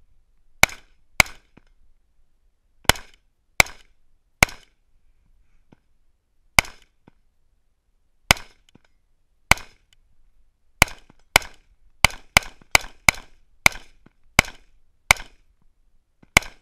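AR-15 rifle firing about eighteen shots: single shots and quick pairs with pauses of one to two seconds, then a faster string of shots in the last third.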